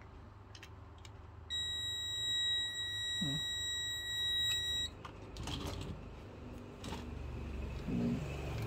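ZOYI ZT-S1 digital multimeter's continuity beeper sounding one steady, high beep for about three and a half seconds while its probes bridge the circuit breaker's terminals: the breaker's contacts are conducting. A few light clicks follow.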